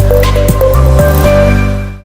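Music with a deep held bass line and a regular beat, fading out near the end.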